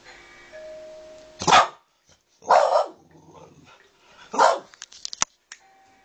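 A doorbell chimes, then a Boston Terrier barks three times, loud and spaced about a second apart, followed by a few short clicks.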